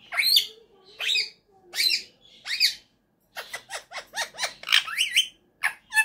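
Indian ringneck parakeet calling: four loud calls that sweep up and down in pitch, about one every 0.8 s, then after a short pause a quick run of short chirps and one last call near the end.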